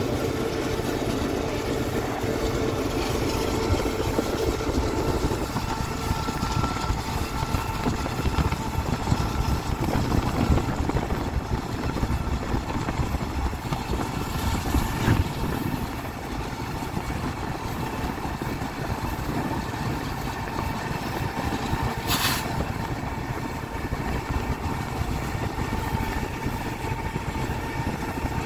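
Steady rumble of travel while driving alongside a moving BNSF freight train: road noise mixed with the sound of the train's diesel locomotives, led by a GE C44-9W. A single sharp click comes about 22 seconds in.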